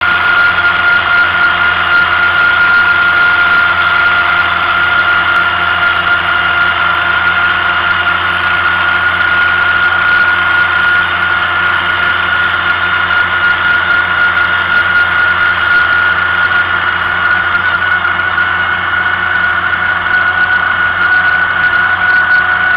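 Tractor engine running steadily at road speed, with a steady high-pitched whine over it.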